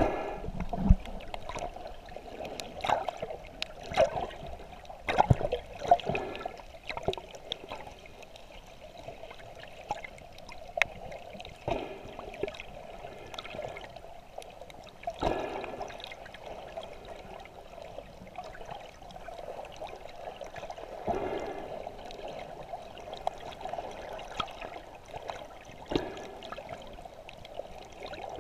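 Water moving around a camera's microphone while it is submerged and moving through the sea: a steady muffled rush, broken at irregular moments by sharp clicks and knocks.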